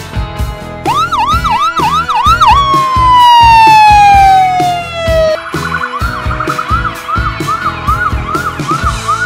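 Electronic ambulance siren over a music track with a steady drum beat: a fast rising-and-falling yelp about a second in, then one long tone sliding down in pitch, the loudest part, then repeated rise-and-fall wail cycles at about two a second.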